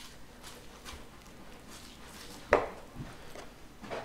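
Butcher's knife and hands working on raw beef on a plastic cutting board while trimming fat from a top sirloin butt: faint handling and cutting sounds, with one sharp knock about two and a half seconds in and two softer knocks after it.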